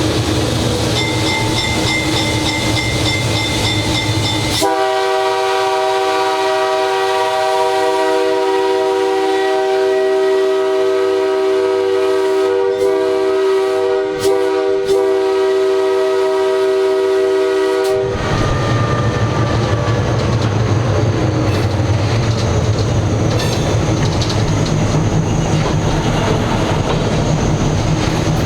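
Nathan K3H five-chime air horn on a GE 80-ton switcher locomotive sounding one long blast, a steady chord of several notes held for about thirteen seconds, starting about five seconds in and cutting off suddenly. Before and after it, the locomotive's engine and wheels rumble.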